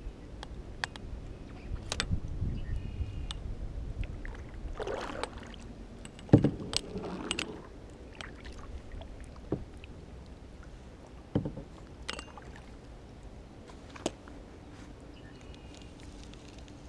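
Kayak paddling with water sloshing around a plastic sit-on-top kayak, then a series of sharp knocks and clicks as the paddle and fishing rod bump the hull, the loudest about six seconds in.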